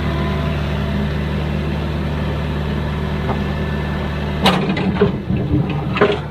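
Diesel engine of heavy construction machinery running steadily. About four and a half seconds in, the engine drone drops away and a handful of sharp metallic knocks follow, louder than the engine.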